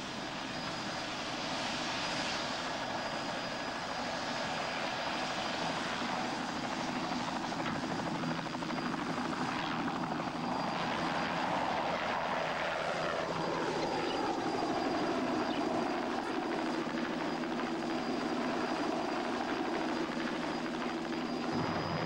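Helicopter engine and rotor running steadily, with a pitch that slides down about halfway through as it goes by overhead.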